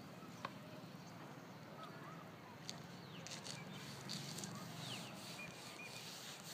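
Faint outdoor background with a few short bird chirps, and two light clicks, one about half a second in and one nearer the middle.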